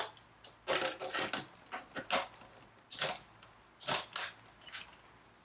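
Hard plastic clicking and knocking as blender jars and lids are handled and seated on their bases: about ten short clacks, with a quick cluster about a second in.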